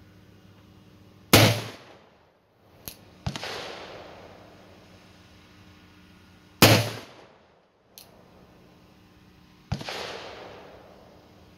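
Percussion-cap black-powder revolver, a Colt 1860 Army fitted with a short 3-inch barrel, fired twice about five seconds apart: loud sharp reports, each with a brief fading tail. Between and after them come two fainter gunshots with longer echoing tails and a couple of light clicks.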